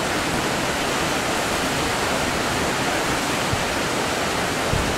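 Fast-flowing river water rushing through a rocky canyon, a steady even rush, with a couple of brief low bumps on the microphone near the end.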